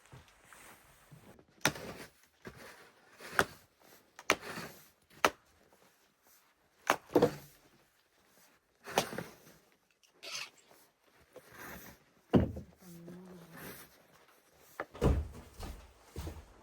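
Irregular knocks, thumps and clatter of objects being handled in a small room. About two-thirds of the way through there is a brief wavering squeak.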